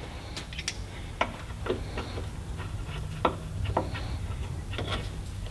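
Scattered sharp clicks of a ratchet and socket working the bolts of a Caterpillar 3406B's fuel primer pump, about seven separate ticks over a faint low hum.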